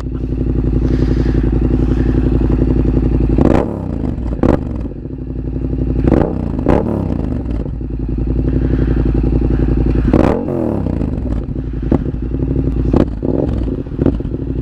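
Yamaha MT-07's parallel-twin engine idling through a Mivv GP exhaust with no baffles, blipped about five or six times: each short rev rises sharply and falls back to a lumpy idle.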